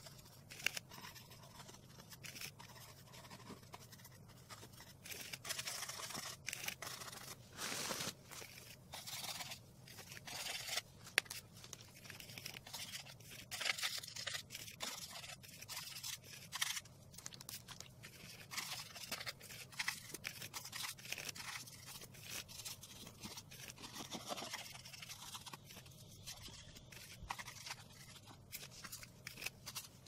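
Paintbrush bristles scrubbing paint onto a cardboard base: a long run of short, irregular scratchy strokes, with one sharp tap about eleven seconds in. A steady low hum sits underneath.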